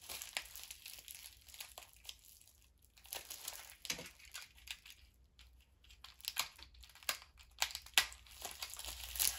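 Plastic wrapping crinkled and torn by hand to free a well-packaged item, in irregular crackles with short quieter pauses.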